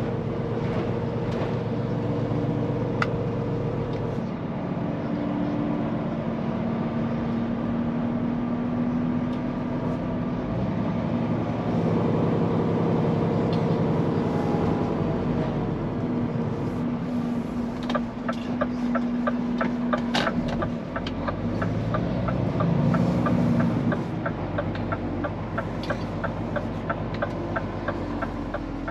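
Scania P410 truck's diesel engine running on the road, its note stepping up and down in pitch several times as the truck changes speed and gear. From a little past halfway, a fast, even ticking joins in, about three ticks a second.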